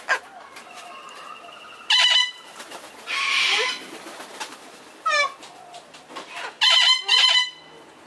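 Princess parrots calling during courtship: a run of short chattering calls with a harsh screech about three seconds in, and the loudest calls about two seconds in and twice near the end.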